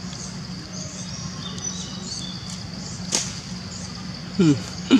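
A steady insect drone with scattered small bird chirps. About three seconds in there is one brief sharp sound, and near the end a person's voice begins.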